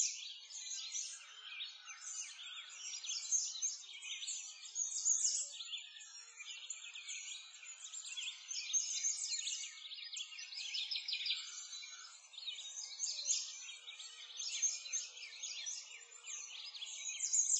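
Dense chorus of small songbirds chirping and trilling without a break, all high-pitched, with nothing low underneath.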